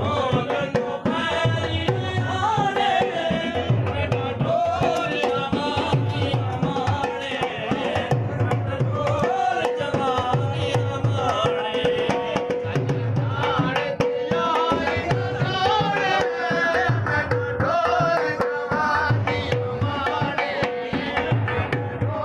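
Dhol drum beating deep bass strokes in a repeating rhythm under a shehnai playing a wavering, ornamented melody, with one steady note held beneath it.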